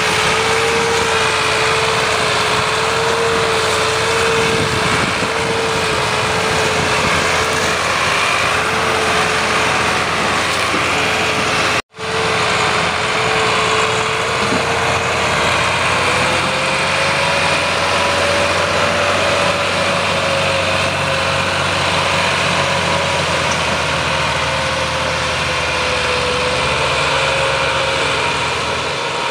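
Massey Ferguson tractor's diesel engine running steadily under heavy load as it pulls an overloaded sugarcane trolley. The engine note wavers slightly, climbs a little about halfway through, and sinks near the end; the sound cuts out for an instant partway through.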